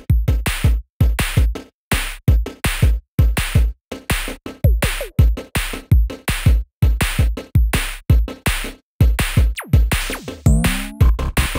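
Background music: an electronic drum-machine beat, a steady run of hard, deep-hitting beats with short silent gaps between them, with a few sliding synth tones near the end.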